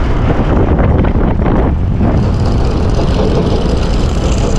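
A scooter in motion: its engine running and tyres on the road, mixed with wind buffeting the microphone as it rides along.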